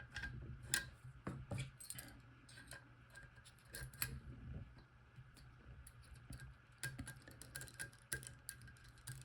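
Faint, irregular small metallic clicks and ticks of a pick tool working the rotating discs inside an Abloy disc-detainer padlock while it is being picked.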